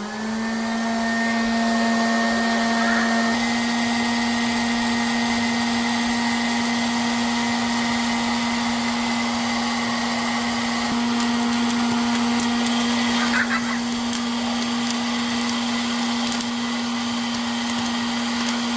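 An electric appliance motor starts and runs steadily with a constant hum.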